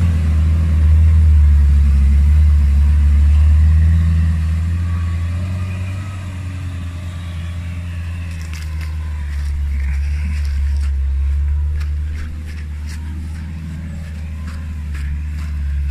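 Off-road 4x4's engine running low and heavy as the vehicle works up a slope, loudest for the first few seconds, then easing off. Scattered sharp clicks and crackles come in over the second half.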